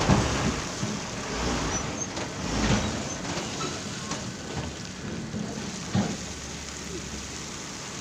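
Loaded diesel dump truck running under load as it crawls over a rough gravel road, with a low engine hum and a rough crunching noise from the tyres on rock; a few sharp knocks, the clearest about six seconds in.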